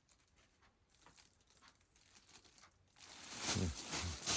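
Faint rustling as craft supplies are handled in a storage bin, growing into louder crinkling and rustling about three seconds in, with a few soft knocks.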